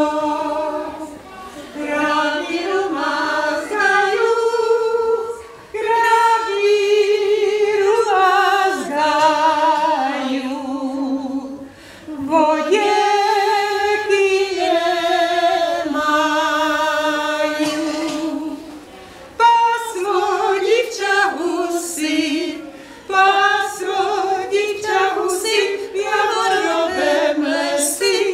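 A group of women singing a folk song unaccompanied, in phrases of a few seconds with short pauses between them and a slight vibrato on the held notes.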